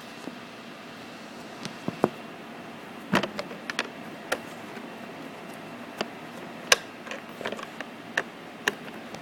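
Irregular sharp clicks and light knocks of a hand tool and small bolts against the plastic armrest while its bolts are being taken out, about a dozen in all, with the loudest near two-thirds of the way in.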